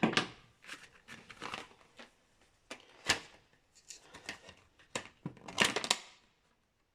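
Hand measuring tools being handled: irregular clicks, knocks and scrapes of metal parts, the loudest clatter about five and a half to six seconds in, then the sound cuts off suddenly near the end.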